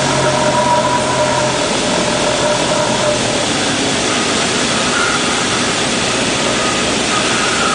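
Cessna 172's engine and propeller running at low power, heard inside the cockpit as a steady drone under heavy rushing noise, as the plane rolls out on the runway after landing. A tone in the engine note fades out in the first few seconds.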